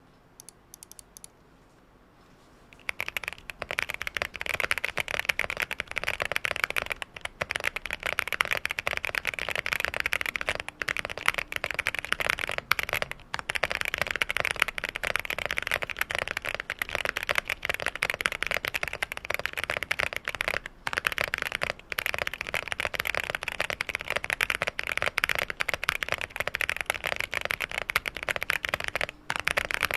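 Fast typing, about 145 words per minute, on a QK65 mechanical keyboard with stock, unlubed Boba U4T tactile switches on a POM plate, gasket-mounted and set on a deskmat: a dense stream of key clacks. It starts about three seconds in, with a few brief pauses.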